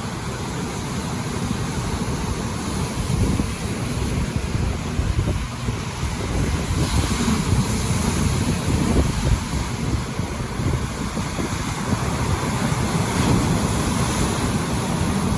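Strong wind buffeting the microphone over the steady wash of high surf breaking on the Lake Michigan shore.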